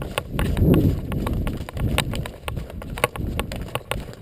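Footsteps through dry woodland undergrowth: an uneven run of sharp snaps and clicks over rustling.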